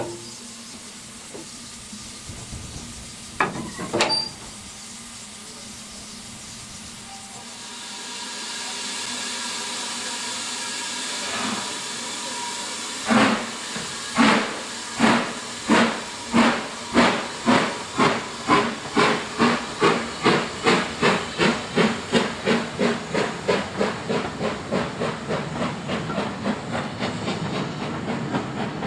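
BR Standard 4MT 4-6-0 steam locomotive starting away with its train: steam hisses from the open cylinder drain cocks, then the exhaust beats begin about a second apart and quicken to several a second. A couple of sharp knocks come a few seconds in, before the hiss builds.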